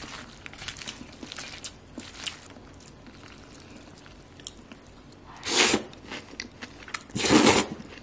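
Eating sounds from a bowl of bibim-guksu: faint chewing and small clicks, then two loud, short mouthfuls about a second and a half apart near the end.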